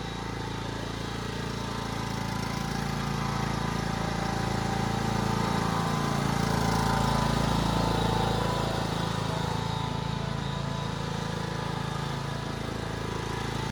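Riding lawnmower engine running steadily, growing louder toward the middle as the mower comes closer, then fading a little again.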